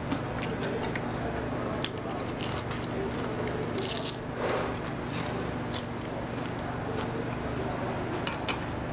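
Close-miked chewing and wet mouth sounds of a person eating, with light clicks of chopsticks against dishes, over a steady low hum.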